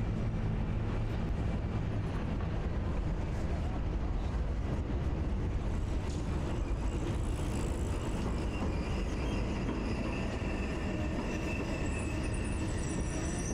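A Milan city tram rolling past on its rails with a steady low rumble, and a thin high squeal from its wheels in the last few seconds.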